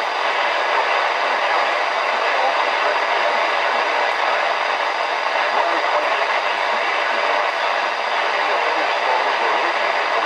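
Steady hiss of static from a weather radio receiver: an even rushing noise with no tone or voice in it.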